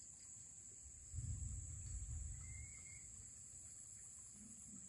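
Quiet outdoor ambience with a steady high-pitched insect drone from crickets. A low rumble comes in about a second in and lasts about a second and a half, and a faint short chirp sounds halfway through.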